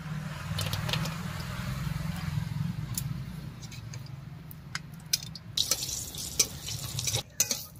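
Bori (sun-dried lentil dumplings) sizzling as they fry in hot oil in a metal kadai. From a little past halfway a metal spatula stirs them, clicking and scraping against the pan.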